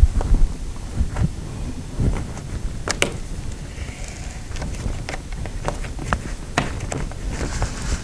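Cables being pulled out of a plastic wall-mounted cord channel by hand: scattered plastic clicks and knocks over rustling and a low rumble.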